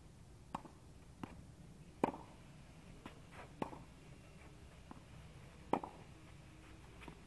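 Tennis rally on a clay court: rackets striking the ball and the ball bouncing, heard as about nine sharp knocks at uneven spacing, the loudest about two seconds in and again near six seconds.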